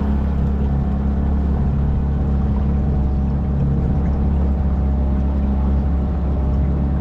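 Yamaha 9.9-15 outboard motor running steadily at cruising speed, pushing an aluminium boat along. The engine note holds even throughout.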